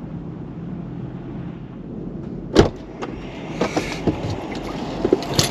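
A steady low rumble, then about two and a half seconds in a sharp clack as a Jeep's door is opened, followed by scattered clicks and rustling as someone climbs into the seat.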